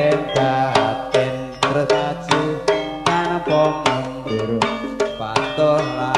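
Javanese gamelan playing tayub dance music: sharp kendang hand-drum strokes, a few a second in a lively, irregular pattern, over the ringing tones of the metallophones and gongs.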